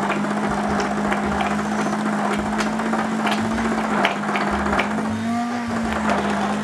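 Hand-held immersion blender running at a steady speed in a glass bowl of thick cold avocado soup: an even motor hum with the churning of the purée and occasional light clicks.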